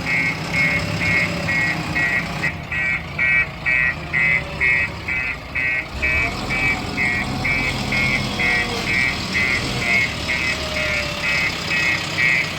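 An electronic warning beeper sounding in quick, even pulses, about three a second, over a diesel engine running steadily underneath. This is typical of a reversing alarm on a backhoe loader or tractor.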